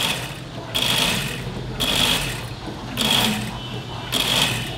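Juki industrial sewing machine stitching in short runs, about one burst a second, each lasting about half a second, as the fabric is guided under the needle.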